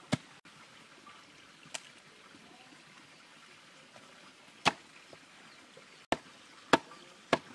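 A large knife chopping through a raw, cleaned turkey carcass on a chopping block: about six sharp chops, spread out at first and coming roughly every half second near the end.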